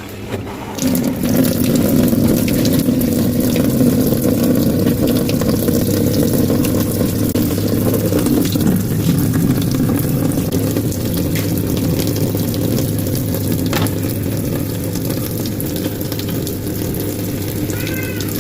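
Water running steadily into an LG top-load washing machine's tub, starting about a second in.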